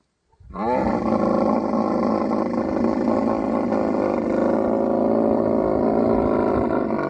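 Male camel's rutting roar: one long, loud bellow that rises in pitch as it begins about half a second in, holds for about six seconds and cuts off abruptly near the end.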